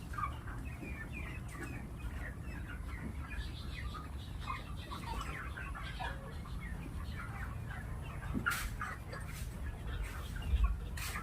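A flock of six-week-old farm chickens peeping and clucking, many short calls overlapping, over a steady low rumble, with a couple of sharp knocks about eight seconds in and near the end.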